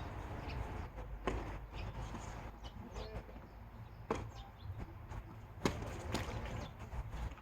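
Tennis ball being hit back and forth in a rally: a few sharp racket strikes and bounces, the last two about half a second apart, over a low steady background rumble.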